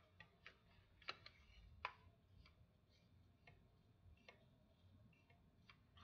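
Faint, scattered clicks and taps of a small red fire alarm device being handled and fiddled with, about nine irregular clicks, the sharpest near one and two seconds in.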